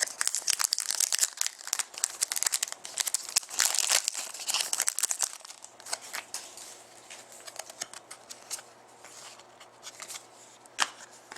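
Trading card pack wrapper crinkling and tearing as a pack is opened: dense crackling for the first five seconds or so, then fainter scattered rustles and clicks, with one sharp click near the end.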